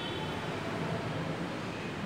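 Steady background noise: a low hum under an even hiss, with no distinct event.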